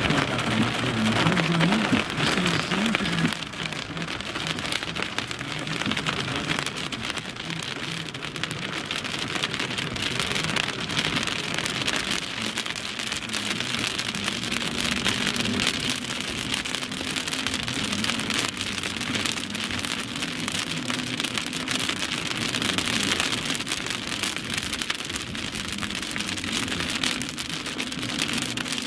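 Heavy rain pelting the windshield and roof of a moving car, heard from inside the cabin as a dense, steady patter of drops.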